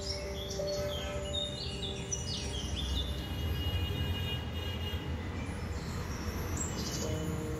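Birds chirping: many quick, high chirps and short sweeping calls, thickest in the first few seconds and again near the end, over soft background music with long held notes and a steady low rumble.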